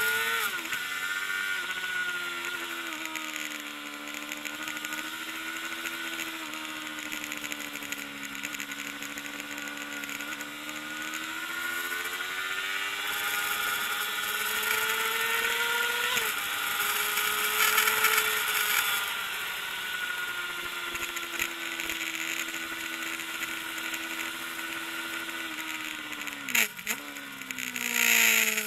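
Kawasaki ZXR400 inline-four engine running hard at high revs under racing. Its note rises and falls with the throttle and gear changes, with a sudden sharp drop in pitch near the end.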